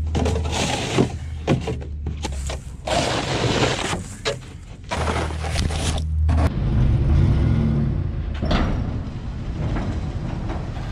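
Tractor loader backhoe's diesel engine running under load, with irregular bursts of scraping and clunks as its bucket digs packed snow out of a steel dump trailer bed.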